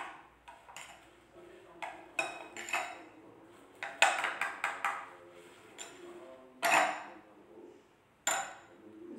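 Metal spoon clinking and scraping against a glass mixing bowl while stirring a thick chocolate mixture. It gives a run of sharp clinks, the loudest about four, seven and eight seconds in.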